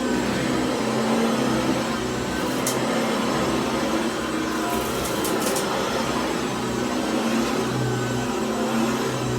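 Cordless stick vacuum running steadily, with a few brief sharp ticks about a third of the way in and again around the middle.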